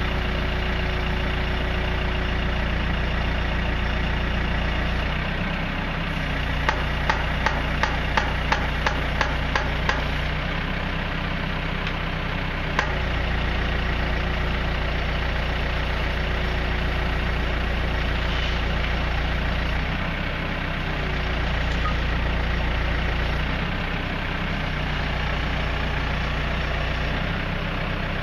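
Telehandler's diesel engine running near idle, its note stepping up and down several times as the boom is worked to raise the mast. A quick run of about a dozen sharp clicks comes about seven seconds in, with one more a few seconds later.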